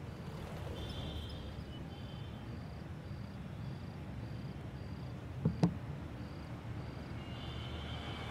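Night ambience of crickets chirping in an even rhythm, just under two chirps a second, over a steady low rumble of distant traffic. A brief sharp double click sounds about five and a half seconds in.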